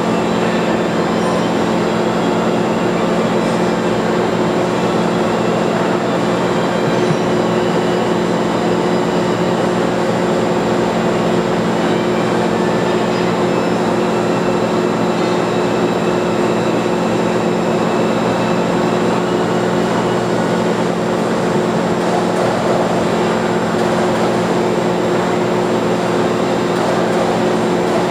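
Screw press with a slotted barrel cage running steadily while pressing liquid out through the cage: a continuous mechanical hum with several steady low tones.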